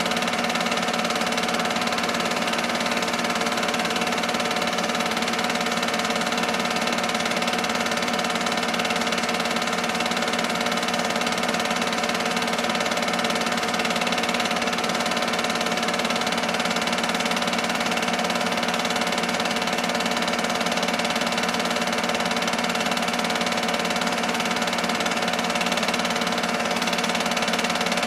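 8 mm film-loop projector running: a steady, unchanging mechanical hum and whir from its motor and film transport.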